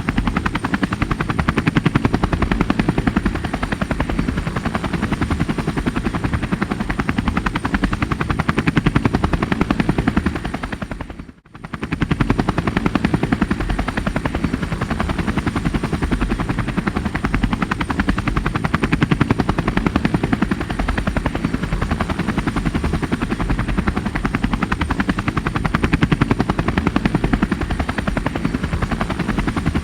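Rescue helicopter hovering, its rotor blades chopping fast and steadily over the engine, with a thin high whine. About eleven seconds in, the sound fades out for a moment and then comes straight back.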